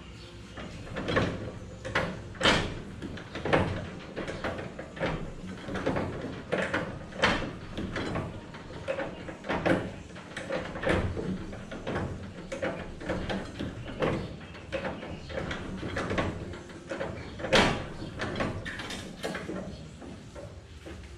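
Irregular metallic knocks, clunks and rattles from hands working on parts in a 1927 Ford Model T's engine bay, about one or two a second, with a few sharper loud knocks. The engine is not running.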